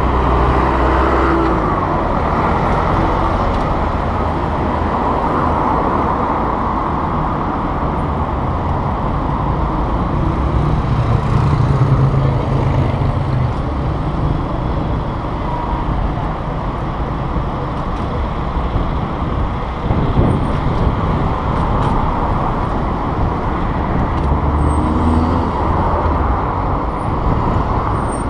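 City street traffic heard from a moving bicycle: a steady wash of car and motorbike engines and tyre noise, with a vehicle's engine swelling about eleven seconds in and another near the end.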